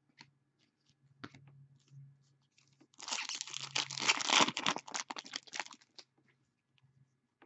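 A trading-card pack's foil wrapper being torn open and crinkled: about three seconds of dense crackling, after a few light clicks of card handling.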